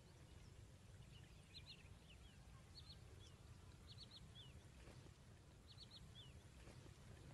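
Faint, high bird chirps in quick groups of two or three, each ending in a short falling note, heard four times over near silence.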